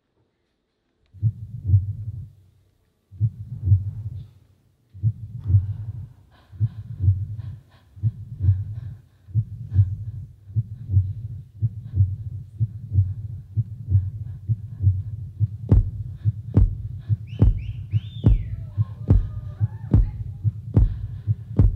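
Electronic dance-performance soundtrack built on a deep, heartbeat-like bass pulse: three slow beats about two seconds apart, then a steadier, quicker beat of a little more than one a second. Sharp clicks join in about three-quarters of the way through, along with high tones that glide up and down.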